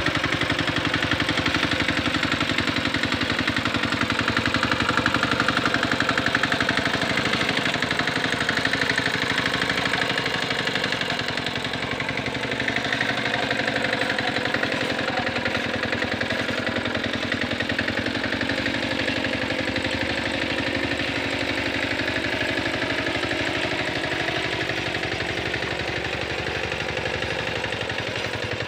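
Small engine of a Quick Capung Metal two-wheel hand tractor running steadily with a rapid, even firing pulse while it pulls a harrow through paddy mud. It dips slightly about halfway through as the tractor turns.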